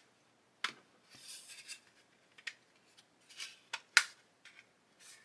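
Grey injection-moulded plastic hull parts of a model ship kit knocking and scraping against each other as the lower and upper hull are test-fitted by hand. A few sharp clicks, the loudest about four seconds in, come between soft rubbing.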